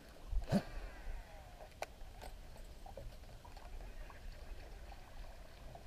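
Quiet wooden canoe on still water: a few sharp knocks on the hull, the first with a low thud about half a second in and two lighter ones a couple of seconds in, over a faint steady hiss.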